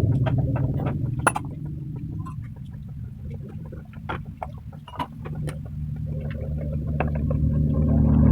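Honda CD 70 70cc single-cylinder motorcycle engine running with a rough, noisy sound, like an old tractor, with scattered sharp clicks over the hum. Its level drops for a few seconds, then rises again towards the end.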